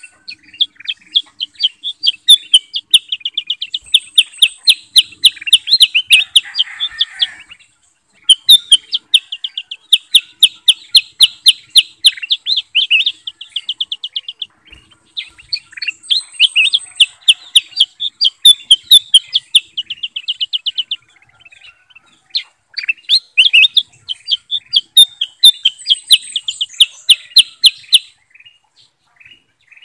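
Bulbuls singing a lure song: long runs of fast, high, repeated chirps, four phrases of about six seconds each with short pauses between.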